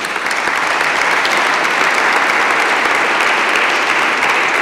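Audience applauding, the clapping swelling a little over the first second and then holding steady.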